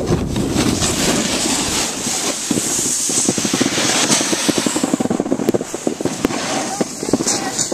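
Snowboard riding over chopped-up snow: a steady rushing scrape of the board on the snow with wind on the microphone, turning into a rapid crackling chatter from about two and a half seconds in.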